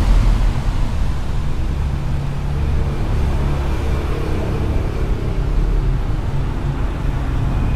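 Steady low rumble of outdoor background noise, with a faint high whine coming in about two and a half seconds in.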